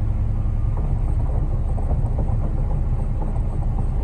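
Concrete mixer truck's diesel engine running steadily during the pour. About a second in, its even hum gives way to a rougher, uneven rumble.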